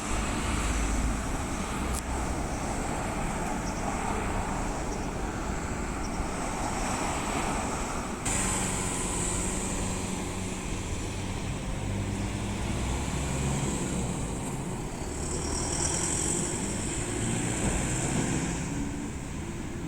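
A BRT bus running along its dedicated busway past a level crossing, its engine and tyre noise continuous. The sound changes abruptly about eight seconds in.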